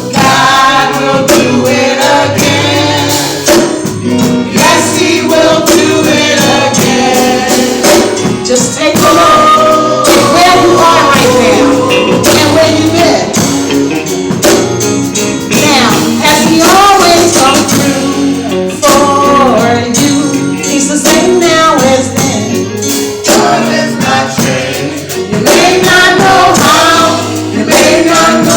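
Upbeat gospel song with choir voices singing over the band, a tambourine shaking along to the beat.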